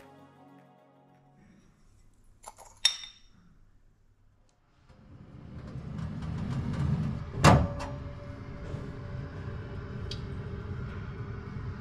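Metal clinks a couple of seconds in as the baking tray is handled. Then a convection oven's fan starts a steady hum with a few held tones. A loud metallic knock about halfway through is the tray being pushed onto the oven rails.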